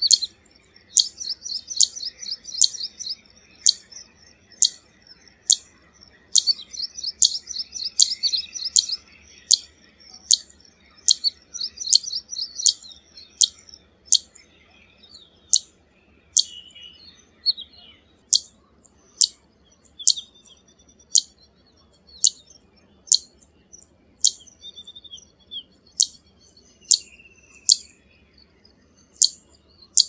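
Zitting cisticola calling: a steady series of short, sharp, high 'zit' notes, about two a second, with bursts of rapid high chattering between them in the first half.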